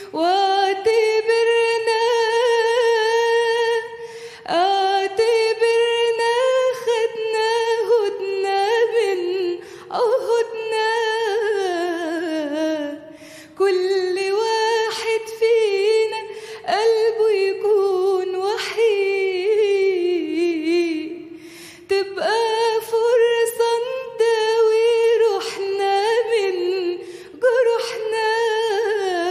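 A woman singing an Egyptian tarab song unaccompanied, drawing out long vowels in held notes with vibrato and melismatic runs, in phrases separated by short pauses for breath.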